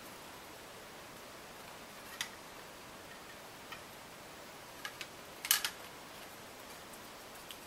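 A few light clicks and ticks from hands handling a thin wire hoop and a small foam flower on a craft board, over a faint steady hiss. The loudest is a quick cluster of clicks about five and a half seconds in.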